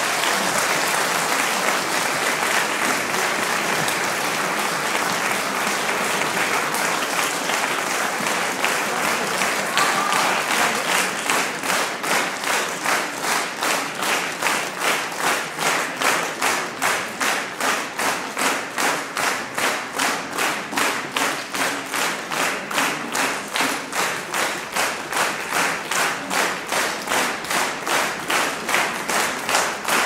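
A large concert audience applauding loudly. About ten seconds in, the scattered applause settles into rhythmic, synchronised clapping at about two claps a second, which goes on steadily.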